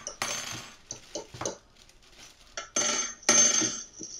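Plastic freezer bag rustling and crinkling as it is opened and handled, in two loud bursts about three seconds in. Before that, a short scrape and a couple of light clicks.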